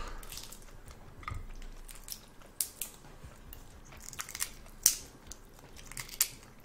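Shells of cooked red shrimp cracking and crackling as they are peeled by hand: scattered sharp clicks and snaps, the loudest about five seconds in.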